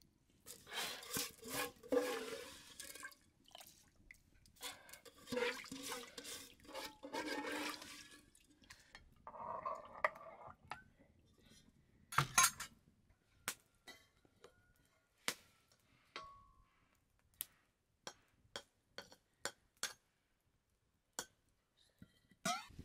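Water pouring and splashing in two rushes of a few seconds each, then a shorter pour, followed by a string of separate sharp clicks and taps.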